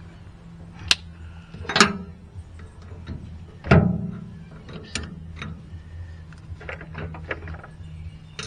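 Metal clanks and knocks from a rotary cutter's PTO shaft and gearbox yoke as the shaft is turned by hand to line up the broken shear bolt for hammering out. Several sharp knocks, the loudest about halfway through with a short ring, then lighter clicks near the end.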